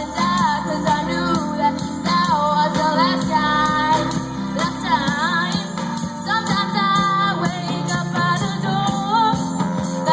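A live band plays a pop ballad with a female lead vocal singing a melodic line over a steady drum beat and band accompaniment.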